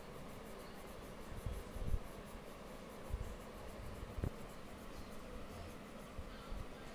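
Quiet scratchy rubbing of a crayon scribbled back and forth on drawing paper as a drawing is coloured in, with a few soft low thumps.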